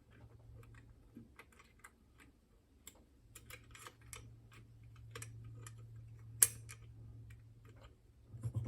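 Picking wires scraping and clicking inside a Chubb Detector lever lock as the curtain is turned, with one sharper click about six and a half seconds in. A faint steady low hum runs underneath.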